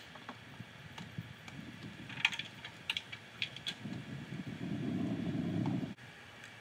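Scattered light knocks and clicks from a fiberglass stepladder as a man climbs down it carrying a cordless drill, followed by about two seconds of low rumbling that cuts off abruptly.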